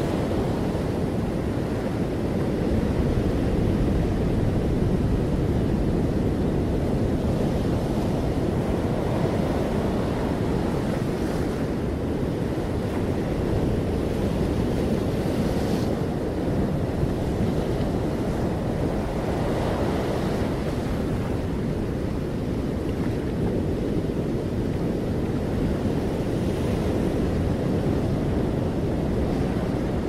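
Ocean surf washing steadily: an even, low rush of noise with only slight swells and no single wave standing out.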